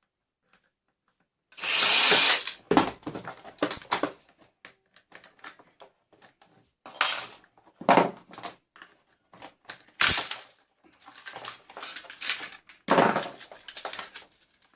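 Irregular clattering, knocks and scraping of vacuum cleaner parts being taken apart by hand, starting after about a second and a half of silence.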